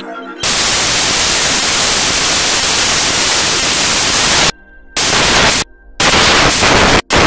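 Loud static hiss, steady for about four seconds, then cutting out and back in several times with short gaps in which faint music shows through.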